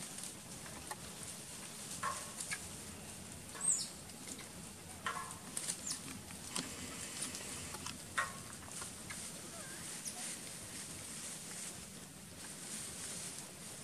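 Macaques moving about and foraging in grass and dry leaf litter: a scattering of short rustles and pats over a steady faint high hiss.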